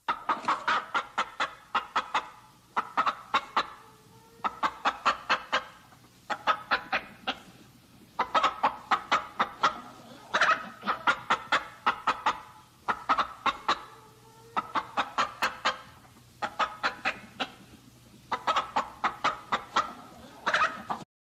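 Domestic chicken clucking in repeated bursts, each a quick run of sharp clucks, about one burst every two seconds.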